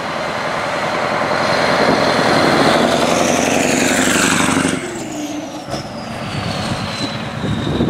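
Scania T143H tractor unit's 14-litre V8 diesel pulling hard as the truck drives past, growing louder, then the engine note drops suddenly about five seconds in as the throttle closes. A high turbo whistle then falls steadily in pitch as the truck moves away.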